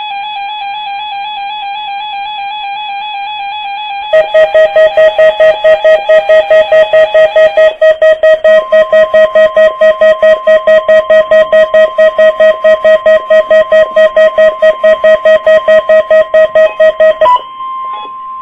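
Midland WR-100 weather radio's alarm going off for a NOAA Weather Radio Required Weekly Test. A steady electronic tone plays first. About four seconds in, very loud beeping starts at about three beeps a second and stops near the end, leaving the broadcast's steady warning alarm tone sounding on its own.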